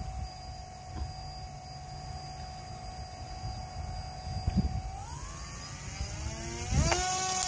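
A motor whine, steady at first, rises in pitch about five seconds in and holds steady at the higher pitch near the end.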